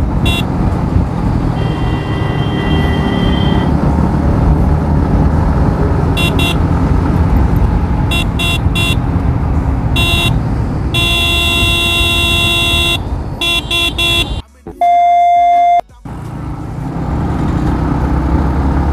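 Yamaha MT-15's single-cylinder engine running at cruising speed under loud wind and road rush, with a vehicle horn sounding in repeated short honks and one longer blast of about two seconds around the middle. A little past the middle, a loud steady tone of about a second and a half takes over while the riding noise cuts out beneath it.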